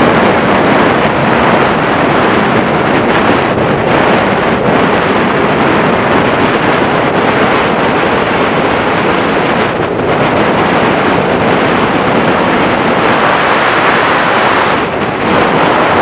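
Loud, steady rush of wind over the microphone of a camera riding on a flying radio-controlled model plane.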